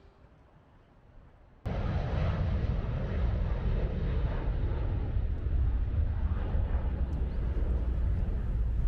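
Airliner passing low overhead: a loud, steady jet rumble with a deep low end, starting suddenly about two seconds in after near silence.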